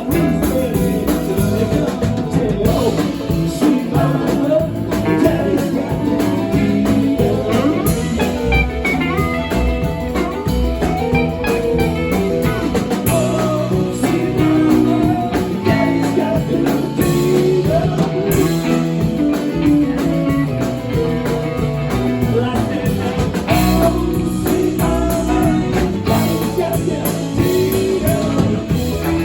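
A live band playing a bluesy song with electric guitar, drums and a singing voice.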